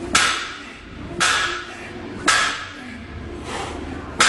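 Loaded barbell's plates knocking down on the gym floor with each quick deadlift rep, a sharp knock about once a second, four in all, each with a short ringing tail.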